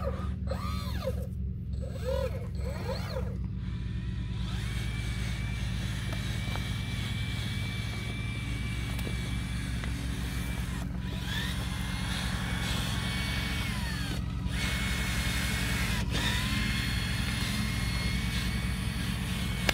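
Radio-controlled model Cat machine working: a small electric motor whines, gliding up and down in pitch for the first few seconds, then holding and stepping up and down as the controls are worked. Underneath is a steady low engine-like hum.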